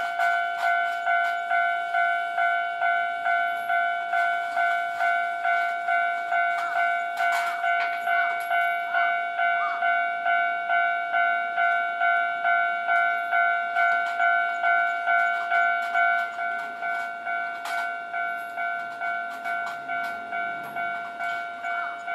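Japanese railway level-crossing alarm ringing: an electronic ding repeated a little under twice a second, each stroke fading before the next. It becomes quieter about sixteen seconds in.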